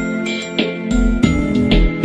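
Instrumental background music with high chiming notes over a bass line.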